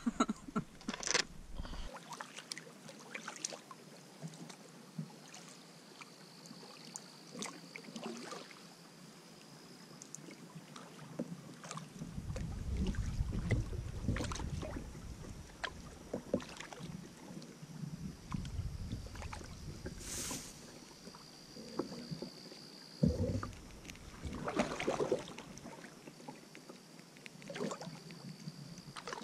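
Canoe paddling: paddle strokes in the water with scattered knocks against the hull and splashes. A thin high tone comes and goes several times.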